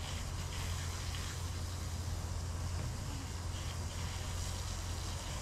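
Pressure washer running steadily with a constant low hum, its water spray hissing against a truck topper's shell as it is washed after sanding.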